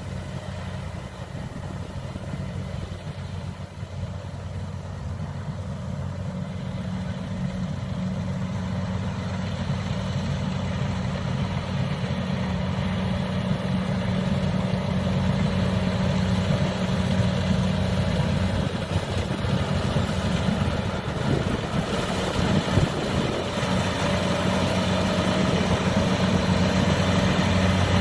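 Diesel engine of a tracked rice-harvesting machine running steadily with a low, even hum, growing gradually louder.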